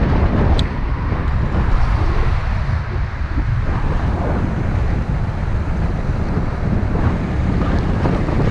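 Wind buffeting the microphone of a camera riding on a moving electric bicycle: a steady, deep rumbling wind noise.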